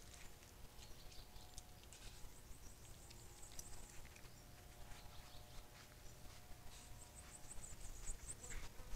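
Faint, scattered rustling and crackling of dry leaf litter under a tayra's footsteps. Near the end comes a quick run of high, thin chirps.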